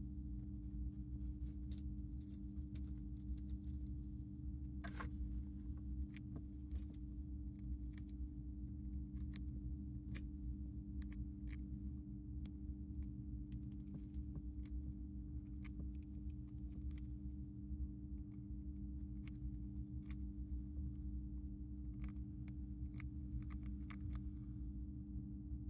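Dwarf hamster nibbling and crunching dry food from a ceramic bowl: irregular tiny crisp clicks, a few a second, over a steady low hum.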